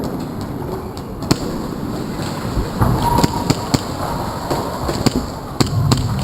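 Airsoft guns firing: scattered single sharp cracks at irregular intervals, one about a second in, a cluster around three seconds in and a few more near the end, over a steady low rumble.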